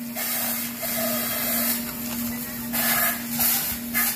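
Clear plastic packets of seal rings crinkling as they are handled and turned over, over a steady low hum.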